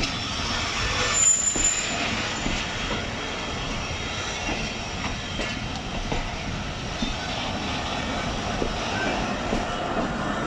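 Passenger coaches rolling slowly along the rails during shunting: steady wheel-on-rail noise with scattered clicks over rail joints, and a brief high squeal about a second in.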